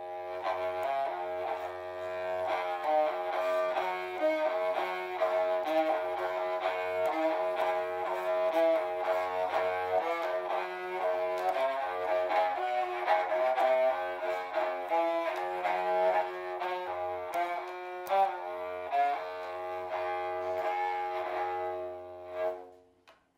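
A horn fiddle (a Stroh-style bowed instrument with a brass amplifying horn) played with a bow, drawing a slow line of held notes. The playing stops near the end.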